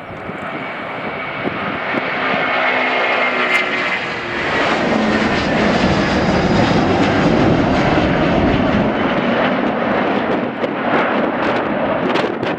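Airbus A330-300 twin-engine jet airliner at takeoff power, lifting off and climbing out. The jet engine noise builds over the first couple of seconds and then holds loud, with a faint falling whine in the first few seconds.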